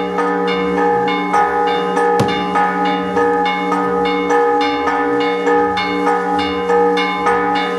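Church bells pealing, struck in a quick, even rhythm of about two strokes a second, their tones ringing on over one another. A single sharp bang cuts in about two seconds in.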